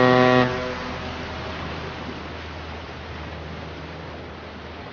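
A ship's horn gives one short blast of about half a second, followed by a steady rushing noise with a low hum that slowly fades.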